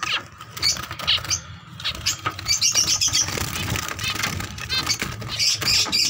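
Zebra finches calling in short, quick chirps, in clusters that are busiest about halfway through and again near the end.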